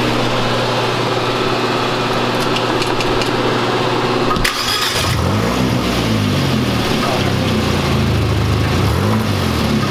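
Fiat 124 Spider Abarth's 1.4-litre turbocharged four-cylinder idling steadily through a muffler-deleted exhaust, then revved twice in the second half, its pitch rising and falling each time.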